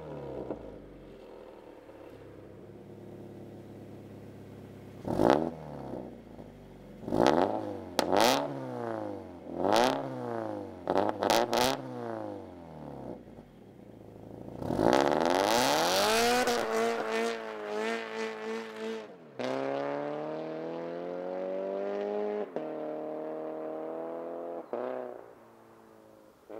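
Toyota GT86's 2.0-litre flat-four boxer engine through a catless downpipe and valved catback exhaust with the valve open. It gives several quick free revs with sharp pops, then a hard full-throttle pull-away: the note climbs and drops at each of three upshifts as the car moves off and fades.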